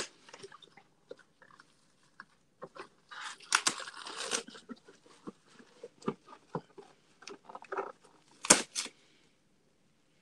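Plastic cling wrap pulled off its roll, torn from the box's cutting edge and crinkled by hand. Scattered crackles and clicks, a longer rustling stretch about three to four seconds in, and two loud sharp crackles near the end.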